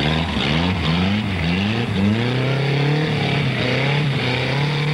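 Trials car engine revving hard, the revs rising and falling several times in quick surges, then holding high and steady. The rear wheels are spinning for grip on the climb.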